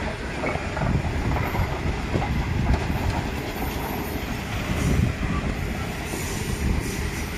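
Indian Pacific passenger train's stainless-steel carriages rolling past at close range: a steady rumble and clatter of wheels on the rails.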